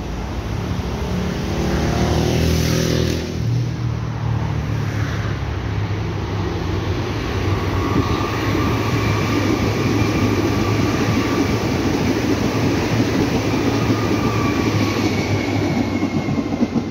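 Yellow Berlin U-Bahn small-profile train running past on steel rails with a steady rumble. A tone falls in pitch about two seconds in, and a steady high whine joins in from about eight seconds, as the cars go by close.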